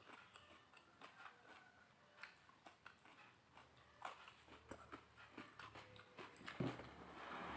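Faint chewing with many small wet mouth clicks from someone eating close to the microphone, and one louder knock about six and a half seconds in.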